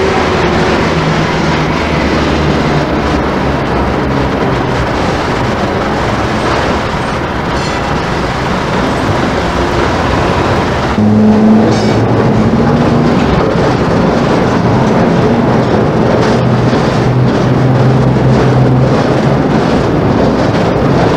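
Hong Kong double-decker tram running on its rails: a steady rumble of wheels and motors with a low hum, which jumps a little louder abruptly about eleven seconds in.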